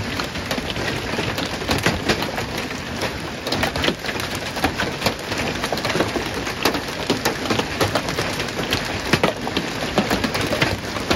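Large hailstones pelting parked cars and the gravel ground: a dense, unbroken clatter of sharp hits over a steady hiss.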